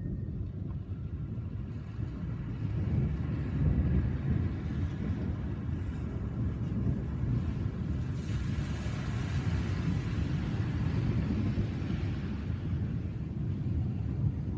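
Low rolling rumble of thunder, swelling about three to four seconds in. A hiss rises about eight seconds in and fades out near the end.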